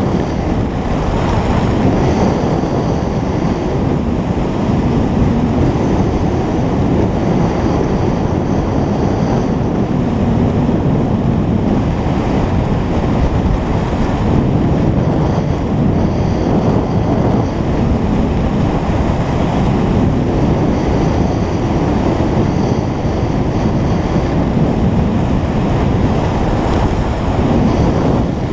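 Steady wind rush buffeting the microphone of a camera carried by a skier moving fast downhill, mixed with skis sliding and scraping over packed snow.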